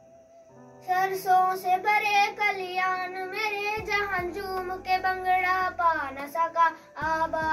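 A child singing a Hindi patriotic song. The voice comes in about a second in, after a brief near-quiet pause.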